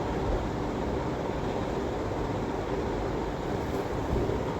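Steady, even hiss with a low rumble underneath, with no distinct events.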